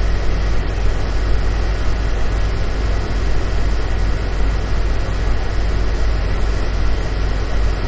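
A Bajaj Popular Ultra induction cooker running at 1400 W with a pot of water on it: a steady whir of its cooling fan over a low hum. The cooker is working again after an E8 error repair.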